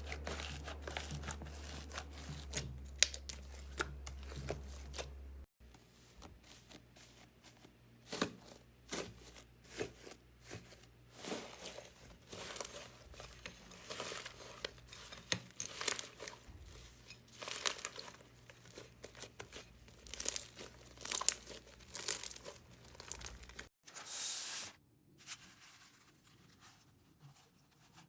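Crunchy slime being squeezed and pressed by hand, a dense, irregular crackling and popping. The sound changes abruptly twice, where one slime clip cuts to the next.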